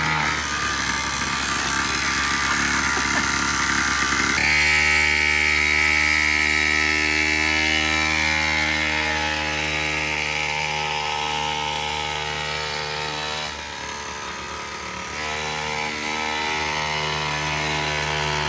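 Two-stroke gas engine of a large-scale RC monster truck running hard at a steady high pitch, revving up and getting louder about four seconds in, easing off briefly near two-thirds through, then back up. It is running strong on a freshly fitted carburetor.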